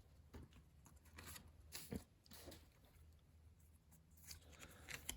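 Near silence with a few faint, scattered rustles and clicks: a foil trading card packet and its cards being handled as the cards are taken out.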